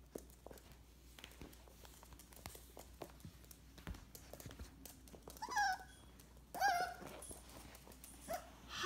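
A small puppy gives two short, high whining yips about a second apart, with a brief third near the end, amid faint light clicking of its claws on a hard floor.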